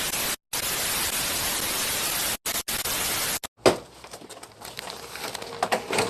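TV static hiss for a glitch transition effect, cutting out abruptly several times over about three and a half seconds. It ends on a sharp click, followed by a quieter stretch with small ticks.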